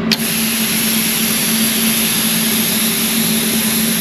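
A switch clicks and compressed air starts hissing steadily out of the PrimeWeld Cut 60 plasma cutter's torch. This is the air-set mode used to dial in the air pressure. A steady low hum runs beneath it.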